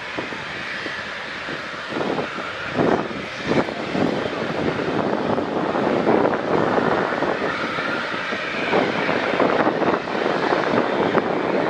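Turbofan engines of an Antonov An-124 Ruslan running as the freighter taxis on the runway: a continuous jet engine noise that swells and fades a little.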